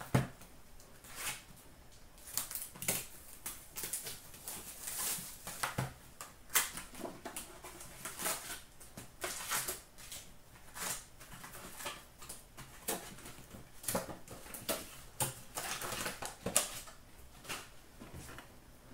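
2019-20 Upper Deck MVP hockey card boxes and foil packs handled and opened by hand: irregular crinkling and rustling of packaging with light taps of cardboard.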